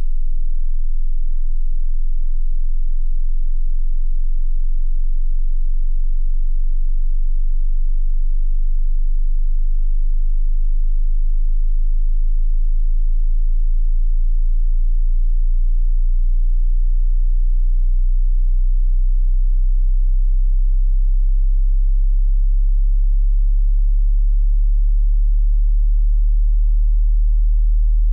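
Very low pure sine test tone, below about 50 Hz, held at an even level, the low-frequency part of a hearing test.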